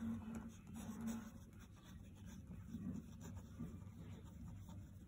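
Faint scratching of a pen writing on paper.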